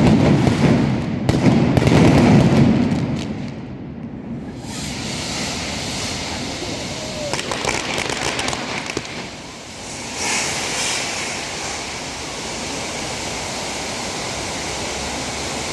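Aerial fireworks: dense, loud bangs for the first three seconds or so, which die away, then a few scattered crackles and a steady hiss.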